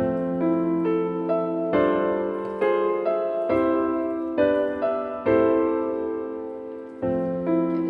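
Background music: a gentle piano piece playing chords and notes that ring and fade.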